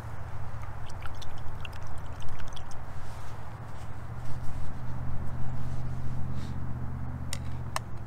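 Low, steady hum of road traffic with a vehicle engine growing louder over the second half, under scattered light ticks; two sharp clicks near the end.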